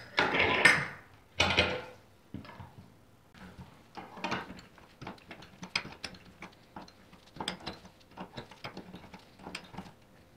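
Steel tools on a brass motorcycle fuel tap clamped in a bench vise: two louder metal clatters in the first two seconds, then a run of light, irregular clicks and ticks as a ring spanner works the tap's nut.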